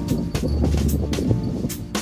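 Background music with a steady beat: drums, bass and melodic instruments.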